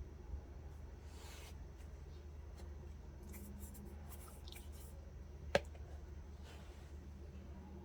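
Faint rustling and handling noises over a steady low hum, with one sharp click about five and a half seconds in.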